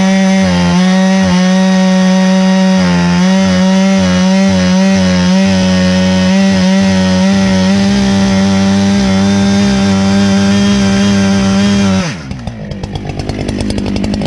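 Husqvarna 395 95cc two-stroke chainsaw running at steady high revs with no load. About twelve seconds in the throttle is let off and the revs fall away toward idle.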